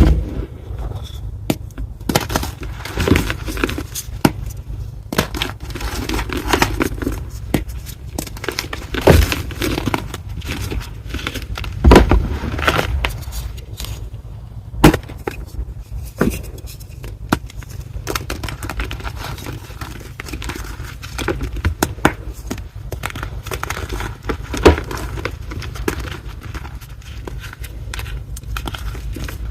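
A reformed block of gym chalk being crushed and crumbled, crunching and crackling unevenly, with a few louder cracks.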